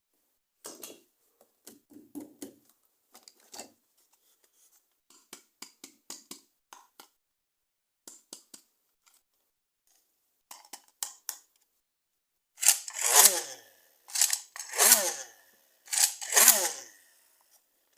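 Toy packaging being handled: scattered small clicks and rustles, then three or four loud tearing sounds near the end.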